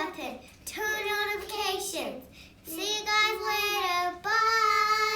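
A child singing a short tune in held notes, in several phrases about a second long with short breaks between them. The last note is held longest and stops just after five seconds in.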